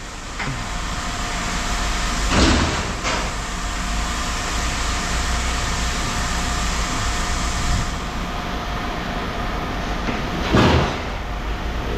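Steady running machinery at a scrap yard, with two loud clattering impacts of handled scrap, about two seconds in and again near the end.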